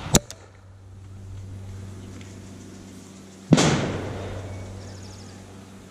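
Airsoft TAG grenade launcher and grenades going off: a sharp crack just after the start, then a louder bang about three and a half seconds in that fades away over a couple of seconds.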